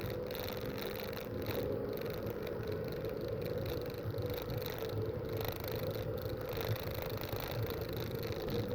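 Race car engine noise: a steady, unbroken drone over a low rumble, in a poor-quality recording.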